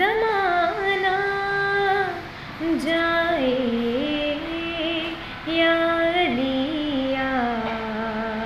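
A woman singing a devotional Urdu kalam solo, holding long notes that slide and waver between pitches, with short breaks for breath.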